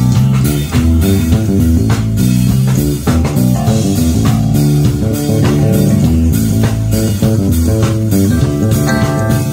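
Live funk band playing: an electric bass carries a busy, moving line up front, over a drum kit with regular cymbal and snare hits and sustained keyboard chords.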